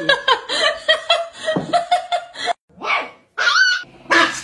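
A small dog barking in sharp, high yips, about three times in the second half.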